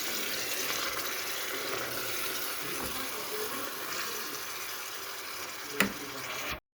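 Kitchen tap running steadily into a sink, with one sharp click near the end before the sound cuts off suddenly.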